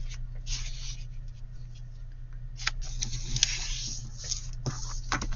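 Paper rustling and scraping in several short bursts as a sheet is folded and creased by hand, over a low steady hum.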